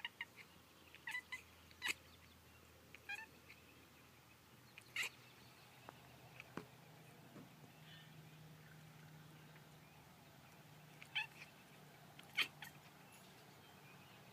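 Domestic cat chirping at birds: short, sharp chirps in small clusters, with a quiet stretch of several seconds in the middle.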